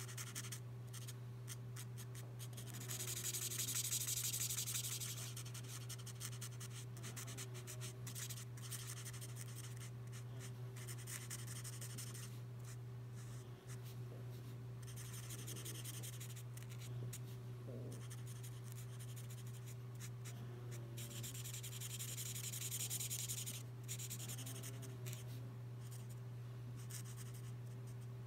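L'emouchet twin-tip marker nib stroking and scratching across paper while colouring in, with two longer spells of louder rubbing strokes, about three seconds in and again around twenty-one seconds in. A steady low hum runs underneath.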